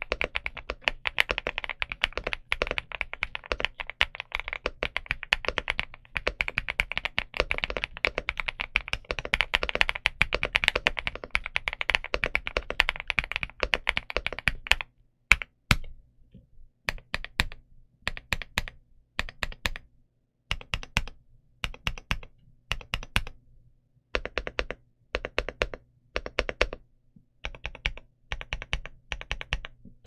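Stock Infiverse Infi75 mechanical keyboard with Qing Ji Designer switches and PBT keycaps being typed on: fast, continuous typing for about the first half, then slower, separate key presses in short groups with brief pauses between them.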